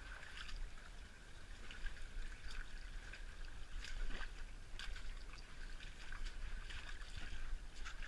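Small creek trickling over rocks in a steady wash, with scattered small splashes and clicks.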